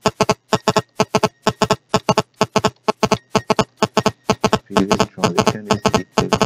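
Computer keyboard being typed on in a quick, steady run of sharp key clacks, about five keystrokes a second.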